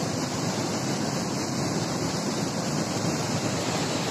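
Steady rushing of river water pouring over a small weir.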